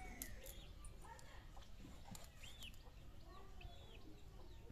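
Faint bird calls in the background: a few short, arching chirps spaced about a second apart, with some lower clucking calls.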